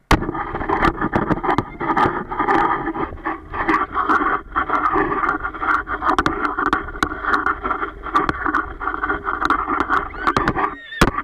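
Loud rushing and rattling of an open 4x4 ride over sand dunes: wind on the camera microphone and the vehicle jolting, with many sharp knocks, mixed with the riders' shrieks and laughter. It starts and stops abruptly.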